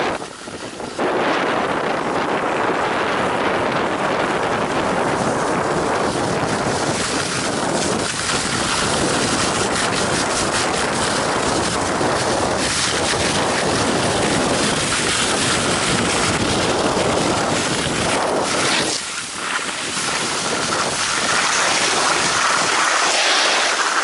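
Wind rushing over the microphone of a camera carried on a downhill ski run, mixed with the hiss and scrape of skis over hard-packed snow. It eases briefly about a second in and again a few seconds before the end.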